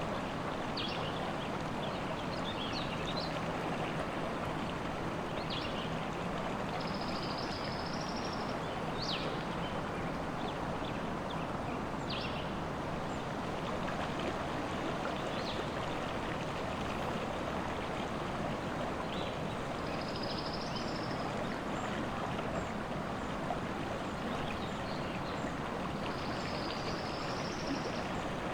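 Steady rushing of river water, with scattered short, high bird chirps and calls over it; a brief high trilled phrase comes three times, about every six seconds.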